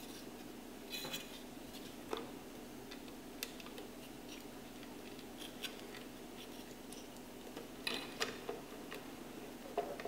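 Scattered small clicks and taps of hard plastic as a cable connector is plugged onto a motherboard header and the plastic I/O shroud is handled and set in place, over a faint steady hum.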